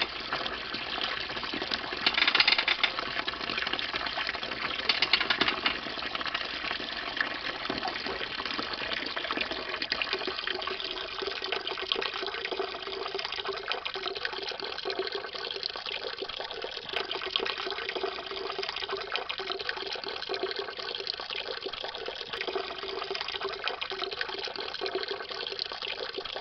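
Pinot Gris grape juice pouring in a steady stream from a wine press spout into a plastic tub, splashing continuously, briefly louder twice in the first few seconds.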